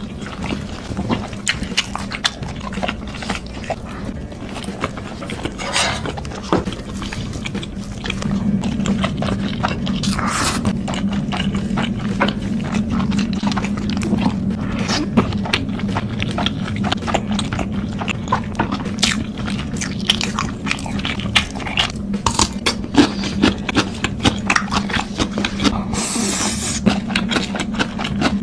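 Close-miked eating sounds of a person eating Korean instant noodles: steady chewing and wet mouth clicks, with longer slurps about 6, 10 and 26 seconds in.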